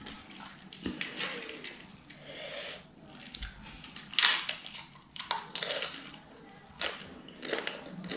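Close-up crunching and chewing of a raw cabbage leaf loaded with crispy fried noodles, eaten by hand, in irregular crackly bites. The loudest crunch comes about four seconds in.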